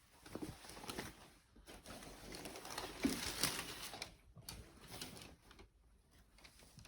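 Rustling and handling noises, in irregular bursts with a few sharp clicks, loudest a little past the middle, as packaging and fabric are handled.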